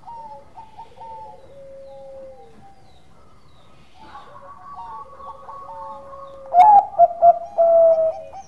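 Zebra dove (perkutut) cooing: a run of soft trilled and drawn-out coos, then a much louder burst of coos from about two-thirds of the way in, opening with a sharp click.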